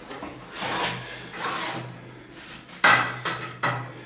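Camp stretcher's metal end bar and fabric being handled during assembly: rubbing and sliding noises, then a few sharp knocks near the end, the first of them the loudest.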